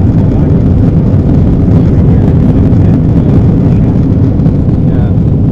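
Steady, loud low rumble of an Airbus A320's engines and airflow heard inside the passenger cabin, as the jet climbs away after a go-around from an aborted landing.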